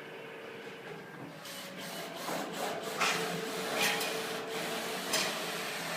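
Sheet metal being worked by hand: a run of rubbing and scraping strokes, the loudest about three, four and five seconds in, over a steady hum.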